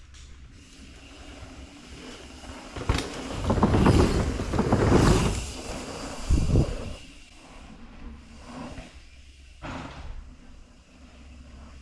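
Mountain bike riding down a dirt jump line, heard on the action camera as steady tyre and wind noise. It swells into a loud rush of noise about three to five seconds in, after a sharp knock, with shorter bursts near six and a half and ten seconds.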